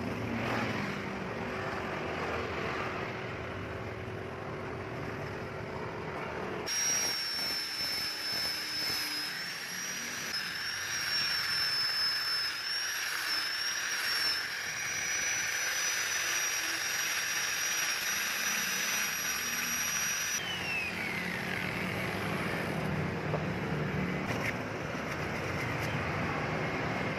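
Angle grinder fitted with a rubber sanding pad, sanding a knife handle. It starts suddenly about six seconds in and runs with a high, slightly wavering whine for about fourteen seconds, then is switched off and winds down with a falling pitch.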